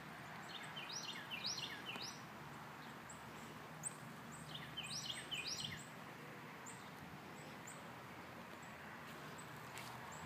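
A songbird singing two short phrases of quick, downward-slurred chirps, about a second in and again around five seconds, over steady outdoor background noise.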